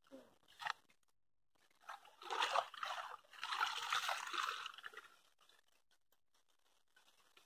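Water and mud sloshing and streaming through a round mesh basket as it is scooped through a muddy pool and lifted out. The sloshing comes in two spells, starting about two seconds in and lasting about three seconds, after a short sharp splash near the start.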